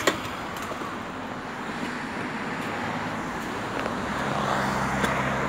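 A motor vehicle's engine running on the road, with a steady hum that grows louder after about four seconds over a background of road noise.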